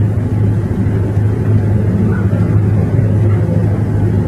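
Steady low hum over a rumbling noise bed, with no speech.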